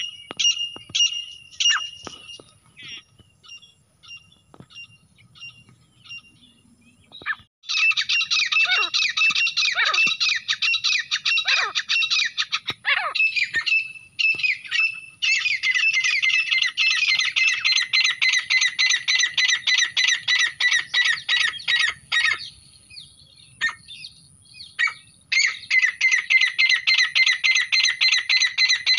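Grey francolin calls, as played for hunting. Repeated high call notes fade out over the first several seconds. About seven seconds in, loud, rapid runs of calls begin. These break off briefly twice and then resume.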